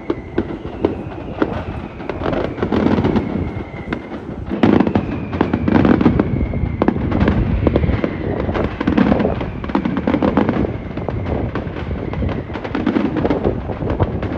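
Mascletà firecrackers going off in a rapid, unbroken barrage of bangs that swells and eases in waves. High whistles falling in pitch run through it several times.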